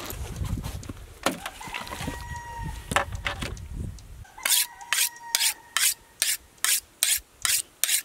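A knife blade drawn along a hand-held sharpening rod: a steady run of quick strokes, about two to three a second, starting a little past halfway. Before that, low rumbling and a few knocks.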